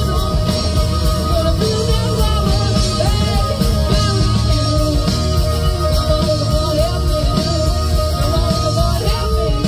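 A live rock band playing: drum kit, electric guitars, bass and keyboards, with a singer's vocal line over them.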